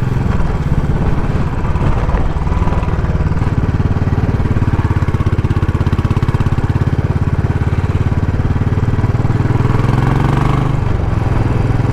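Royal Enfield Classic 500's single-cylinder four-stroke engine running steadily as the motorcycle is ridden, its exhaust beat an even, rapid pulse. The engine note shifts a little about ten seconds in.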